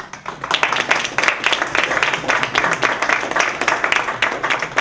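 An audience clapping, a dense burst of applause that starts abruptly.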